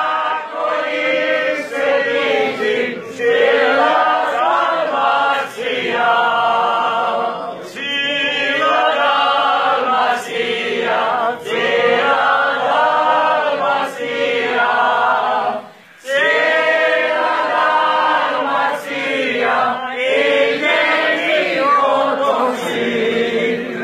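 Several voices singing a Croatian song together without instruments, in long sung phrases, with a brief breath pause about two-thirds of the way through.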